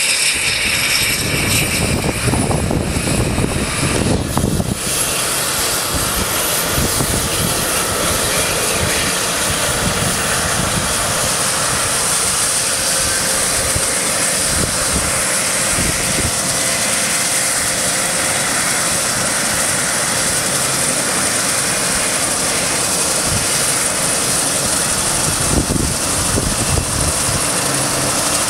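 Twin-turbine helicopter starting up: a high turbine whine climbs in pitch over the first few seconds, then settles into steady engine and rotor noise as the main rotor turns.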